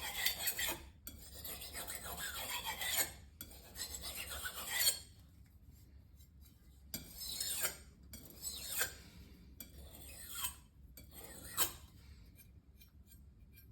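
Steel knife blade being drawn across a whetstone in rasping strokes: several long passes, a pause, then a few shorter ones.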